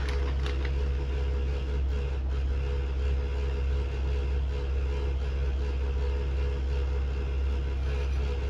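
Steady low mechanical hum throughout, with a few brief crinkles of a plastic pouch near the start.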